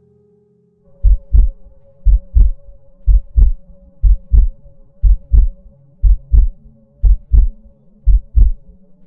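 Heartbeat sound effect: eight double thumps, lub-dub, about once a second, over a faint steady low drone.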